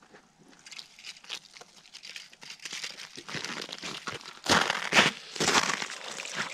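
Boots crunching on crusted snow over lake ice, faint at first and loudest about two-thirds of the way in as the steps come right up to the microphone.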